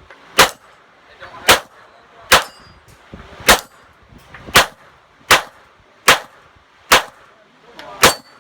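Glock 17 9mm pistol firing 147-grain rounds in a timed string: nine sharp shots about a second apart.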